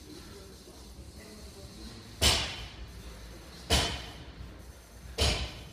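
Barbell loaded with 45-lb bumper plates thudding down on the gym floor three times, about a second and a half apart, as deadlift reps are set down.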